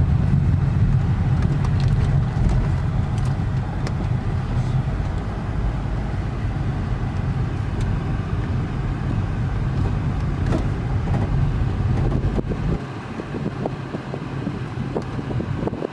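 Steady low rumble of a car driving along, heard from close by. The rumble drops away about 13 seconds in.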